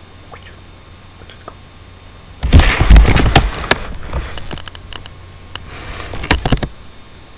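Handling noise from the recording camera being picked up and carried: a jumble of rubbing, scraping and knocking on the microphone with heavy bumps, starting about two and a half seconds in, loudest near the start, and stopping abruptly a little before the end.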